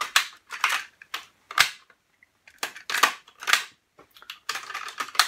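Clicks and clunks from the Pioneer CT-W205R double cassette deck as its front-panel buttons and cassette transport are worked: a dozen or so short, sharp mechanical sounds at irregular intervals.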